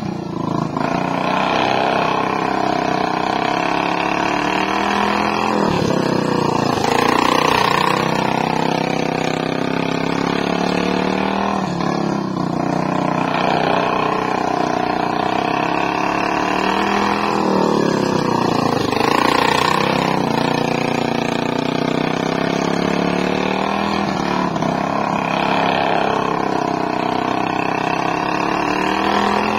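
Racing lawn mower engine running hard, its pitch dropping and climbing again in a repeating cycle about every six seconds as it backs off and accelerates.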